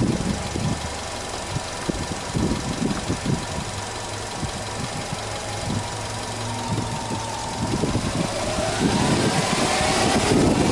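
Subaru Legacy 2.0GT spec B's turbocharged EJ20 flat-four engine idling, with an uneven low pulsing. Near the end the engine rises a little in pitch and level.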